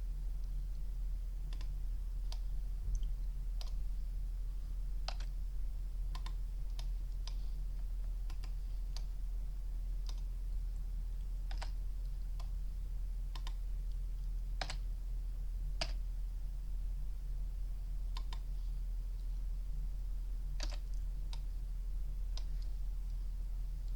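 Scattered, irregular clicks of a computer mouse and keyboard as a 3D model is edited in Blender, about one a second, over a steady low hum.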